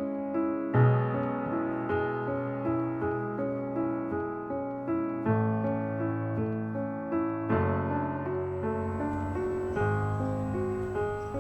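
Slow, gentle piano music: chords of notes that ring and fade over low notes changing every two seconds or so.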